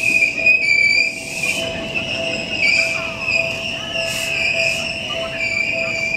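Seibu 2000 series electric train braking to a stop at the platform, its brakes and wheels giving a steady high-pitched squeal that wavers slightly. Under it a lower tone pulses at an even beat, like a level-crossing bell ringing.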